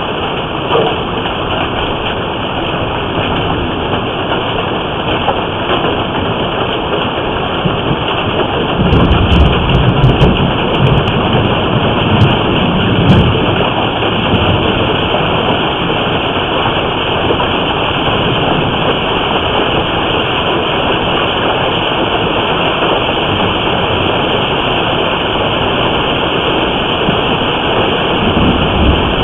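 Heavy hailstorm downpour beating steadily on the house and surroundings, picked up by a surveillance camera's microphone. A low rumble of thunder swells from about nine to fourteen seconds in.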